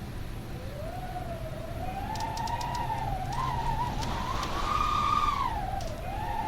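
Wind howling: a wavering, pitched moan that rises and falls, climbing to its highest pitch about five seconds in before dipping, over a low steady rumble.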